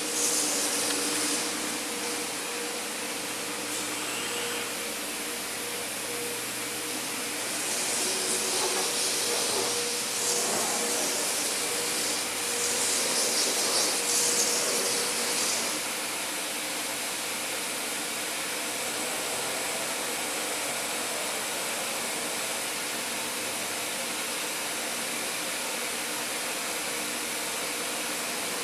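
DMS 5-axis CNC router running: a steady mechanical hiss with a faint steady tone, with louder, brighter hissing stretches about eight seconds in and again from about twelve to fifteen seconds.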